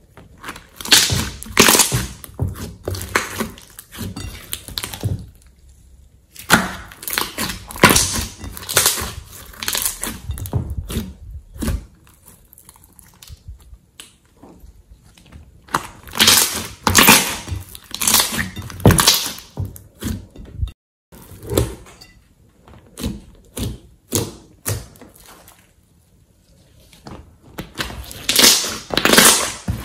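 Slime being stretched, pulled from a glass bowl and squeezed by hand, giving bursts of sticky crackles and pops with short pauses between them.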